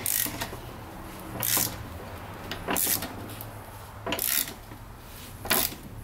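Ratchet wrench clicking in short bursts on its back strokes, five times at an even pace, as it loosens the single nut on top of a strut held in spring compressors.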